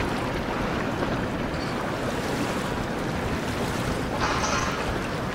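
Steady wind buffeting the microphone over the wash of river water as a large container ship passes close by, with a short higher hiss just after four seconds in.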